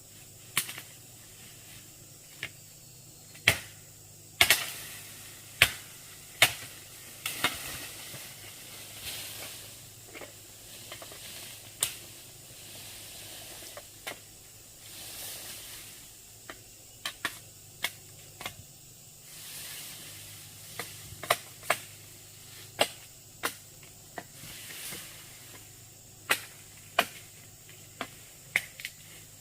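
Irregular sharp knocks, some coming in quick pairs, with several short stretches of scraping, hiss-like noise between them.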